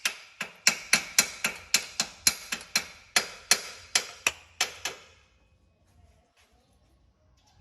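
A rapid series of sharp clicks or taps, unevenly spaced at about three to four a second, stopping about five seconds in.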